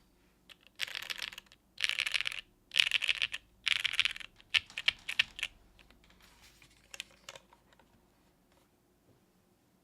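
Typing on a plateless mechanical keyboard with Gateron Cream Soda switches and GMK keycaps: five quick runs of keystrokes, then a few scattered key presses about seven seconds in before the typing stops.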